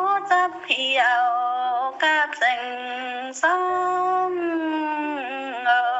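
A woman singing a slow song in long, drawn-out notes that slide and waver in pitch, over low held accompaniment notes that change pitch now and then.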